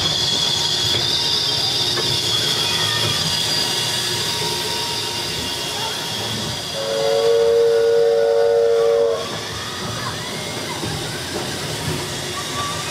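Small train-themed roller coaster running on its track, a steady rumble with a high whine that fades away. About seven seconds in, a train whistle sounds for a little over two seconds: a chord of several tones, the loudest sound here.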